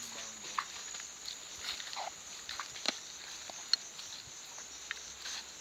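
Night insects chirping steadily, with scattered short clicks and a few brief chirps over it.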